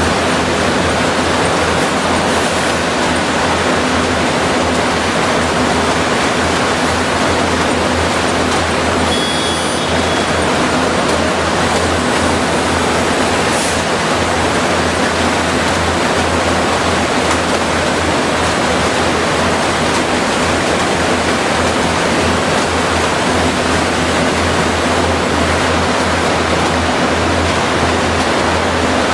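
Steady, loud rushing roar of power-plant machinery in a large hall, with a low hum underneath. A brief high electronic tone sounds about nine seconds in.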